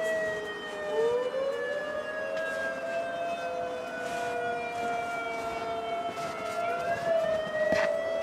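Several siren tones wailing at once at different pitches, outdoor tornado warning sirens sounding for a test. The pitches sink slowly and rise again, with a sharp rise about a second in and another near the end.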